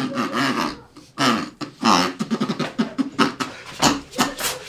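Human beatboxing: a fast string of mouth-made drum hits and raspy scratch sounds, with a fist cupped at the lips.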